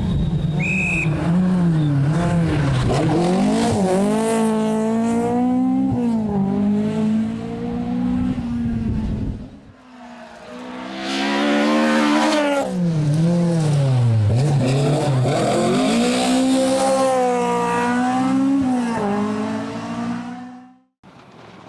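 Rally car engines revving hard in two separate passes, the pitch climbing and dropping again and again through gear changes and lifts. The first fades out about nine seconds in, the second builds up about a second later, and the sound cuts off abruptly near the end.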